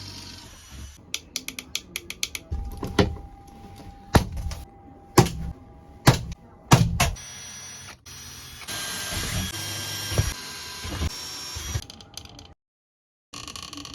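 Work sounds from fitting wall packers: a quick run of ratchet-like clicks, then several sharp knocks, then a power tool whirring for about two seconds.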